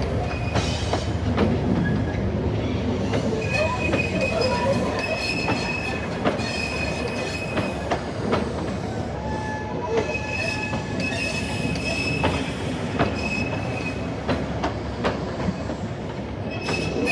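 A train running past with its wheels squealing on the rails: high thin squeals that come and go over a steady rumble, with scattered clicks.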